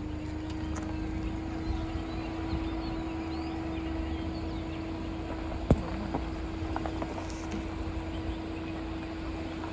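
Outdoor ambience: a steady low hum at one pitch over a low rumble, with scattered faint high chirps. There is one sharp click a little past halfway.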